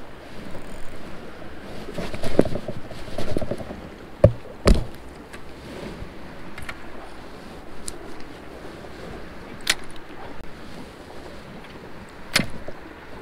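Steady wind and water noise with a few sharp clicks and knocks from handling a spinning rod and reel during a cast and retrieve; the two loudest clicks come close together about four seconds in.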